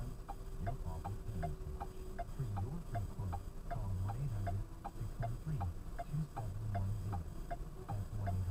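A car's indicator flasher clicking in a steady tick-tock, two or three clicks a second, over a low rumble inside the cabin.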